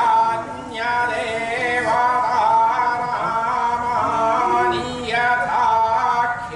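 A man's voice chanting Vedic Sanskrit mantras in long, drawn-out phrases on held notes, with fresh phrases starting about a second in and near five seconds.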